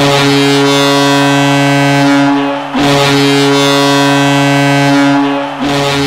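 Ice hockey goal horn: a loud, deep, steady multi-tone horn blast, sounded dry without reverb. It is blown three times back to back, each blast nearly three seconds long, and the third is still going at the end.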